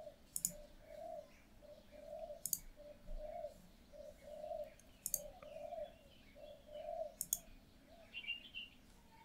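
Faint bird cooing: a long run of short, low calls following one another without a break, with four sharp mouse clicks spread through it and a brief higher chirp near the end.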